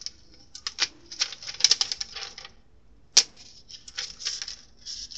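HP 530 laptop keyboard being pressed and worked loose from its glued-on protective sheet: bursts of rapid plastic clicking and crackling, with one sharp louder click about three seconds in.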